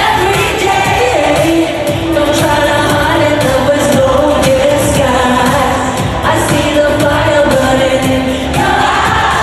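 Live pop dance music at a concert: sung vocals over a steady, loud dance beat.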